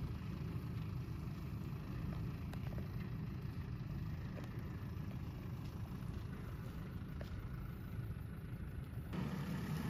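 Off-road 4x4 engine running steadily at low revs, a low hum with a few faint ticks. The sound changes abruptly about nine seconds in.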